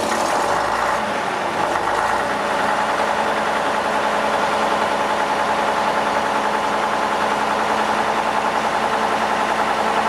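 Leyland Lion PSR1/1 bus's diesel engine idling steadily with an even, rhythmic pulse, just after start-up.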